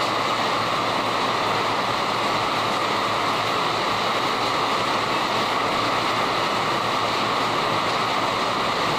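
Heavy rain falling steadily, a constant dense hiss.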